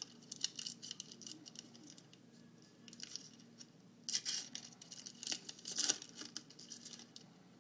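Foil wrapper of a Panini Certified hockey card pack being torn open and crinkled, in irregular crackling bursts that are loudest about four and six seconds in.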